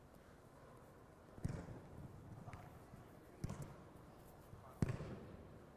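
A football kicked three times, each kick a sharp thud with a short echo, spread over about three and a half seconds.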